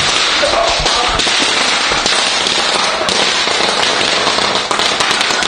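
A string of firecrackers going off, a dense, continuous rapid crackle of small pops.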